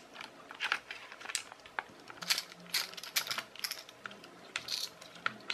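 Small precision screwdriver working screws out of a plastic toy car chassis, with irregular light clicks and scrapes of hard plastic parts being handled.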